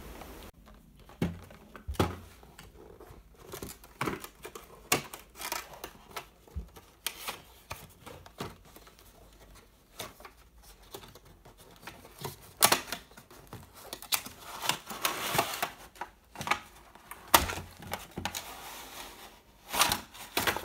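Cardboard box of a nail art kit being opened by hand and its plastic tray pulled out: scattered crisp clicks and knocks of cardboard and plastic, with longer stretches of rustling about two thirds of the way in and again near the end.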